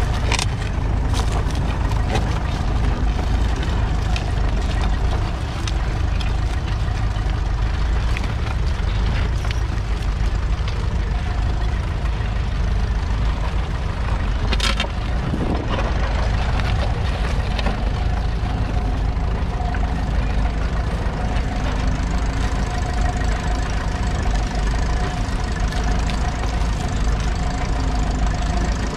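Ferguson TEF20's 2.1-litre four-cylinder diesel engine running steadily under load as the tractor pulls its two-furrow mounted plough through the soil. A single sharp knock about halfway through.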